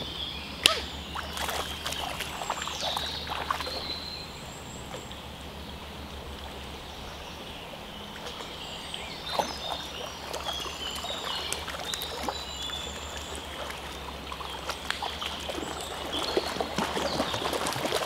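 Water splashing and sloshing as a person and a small dog wade in a shallow stream, in scattered small splashes that thin out in the middle and pick up again near the end.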